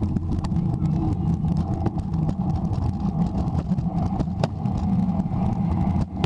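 Scooter rolling over concrete, a steady low rumble full of small clicks and rattles, picked up through the camera mounted on the scooter's front.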